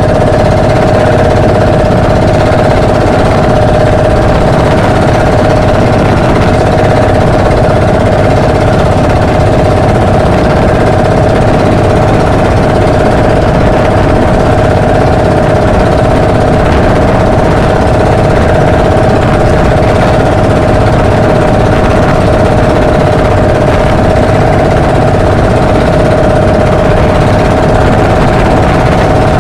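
Engine of a motorized outrigger boat (bangka) running steadily under way, a loud constant drone holding one unchanging pitch.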